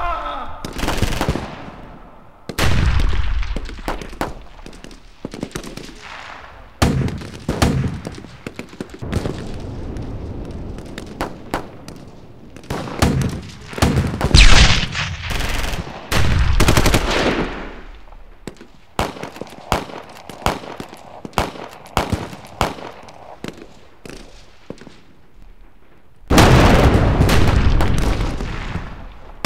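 Gunfire: irregular single shots and rattling bursts of rapid fire. The loudest, densest volleys come about halfway through and near the end.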